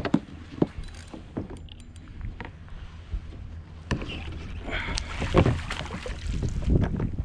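Water splashing and sharp knocks against the plastic hull of a fishing kayak as a hooked snapper is brought alongside and netted, with the splashing heaviest about five seconds in. A steady low rumble of wind on the microphone lies underneath.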